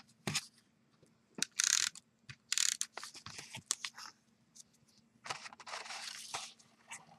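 Adhesive tape runner swiped over card stock, then paper and card being handled: several short, scratchy swipes, the longest about a second, with small clicks between them.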